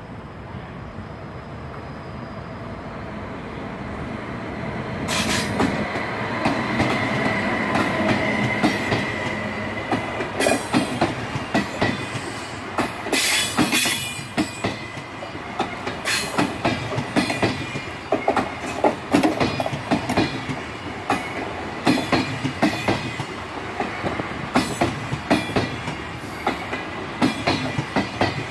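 DB ICE high-speed electric train approaching and passing close by. A rising rumble gives way about five seconds in to the full noise of the train going past, with a steady high whine for a few seconds. Then comes a long run of rapid clicking as the coaches' wheels cross the rail joints.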